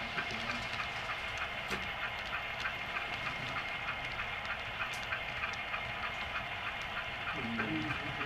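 HO scale model freight cars rolling past on the track, their wheels clicking over the rail joints at about four clicks a second over a steady rolling rumble.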